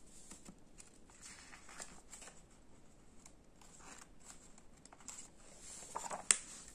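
Faint rustling of a paperback picture book's pages as a page is lifted and turned, with a short sharp tap near the end as the new spread is pressed flat.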